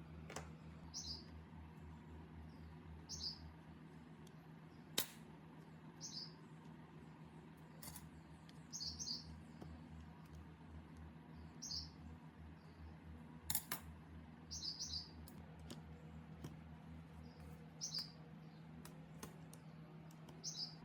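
A small bird chirping again and again, short high chirps every second or two, over a steady low hum, with a few sharp clicks now and then.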